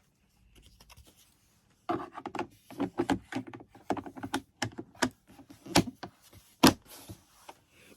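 Access panel of an A-iPower SUA1500i inverter generator being fitted back on by hand: a run of irregular clicks and knocks starting about two seconds in, with one sharper knock near the end.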